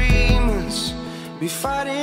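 Background music: a melody over deep bass notes, with a new bass note coming in at the very start.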